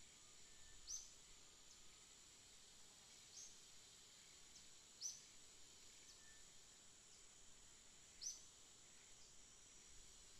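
Faint outdoor ambience: a steady, high insect drone, with a short, high, falling chirp about four times.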